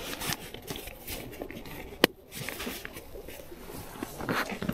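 Rustling and handling of camping gear inside a tent, with one sharp click about two seconds in.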